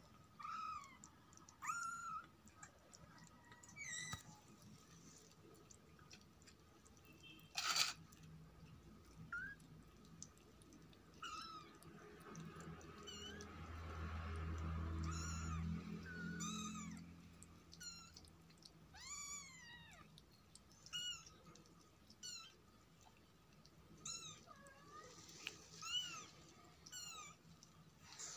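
A kitten mewing again and again in short, high mews that rise and fall. There is a single sharp click about eight seconds in, and a low rumble swells and fades in the middle.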